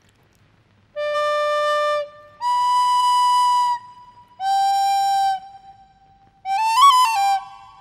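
Flute playing three long held notes, each at a different pitch (low, then high, then middle), then a quick run of short notes near the end.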